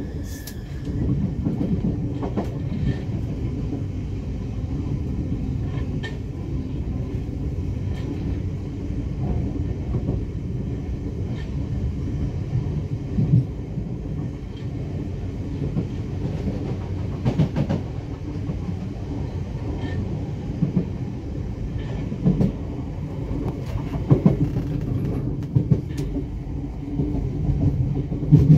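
Class 455 electric multiple unit running along the track, heard from inside its rear cab: a steady low rumble, with wheels clacking over rail joints and points at irregular intervals every few seconds.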